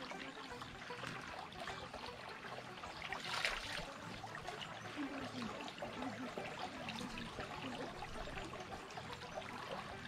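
Spring water trickling and pouring steadily.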